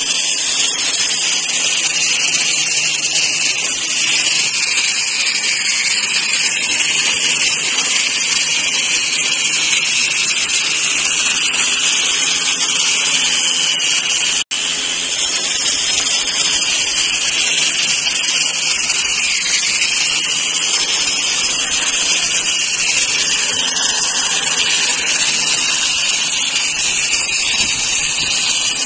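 Handheld electric grinder with a sanding disc running steadily against a travertine wall: a high-pitched whine over a grinding hiss as the stone is sanded. The sound breaks off for an instant about halfway through.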